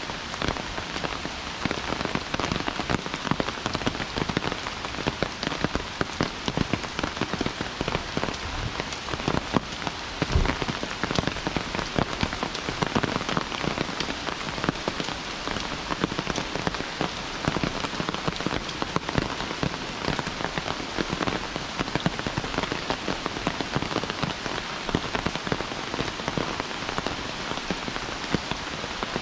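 Heavy rain falling, a dense, steady patter of drops, with a single low thump about ten seconds in.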